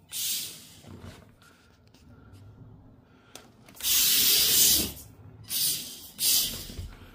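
WLToys K969 mini RC drift car driven in short throttle bursts, its small electric motor whirring and its tyres hissing as they slide. There are four bursts; the loudest and longest, about a second, comes about four seconds in.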